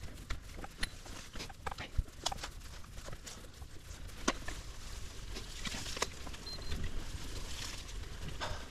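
Riverside 900 bicycle ridden over rough ground: scattered clicks, knocks and rattles from the tyres and bike, over a steady low rumble of wind on the camera microphone.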